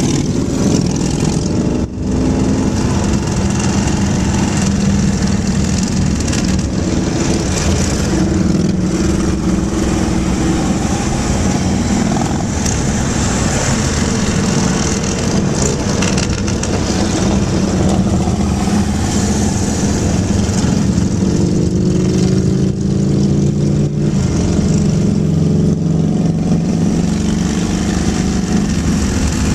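Motorcycle engines running at highway cruising speed close by, a steady hum over road and wind noise, with an engine's pitch rising about two-thirds of the way through as a bike speeds up.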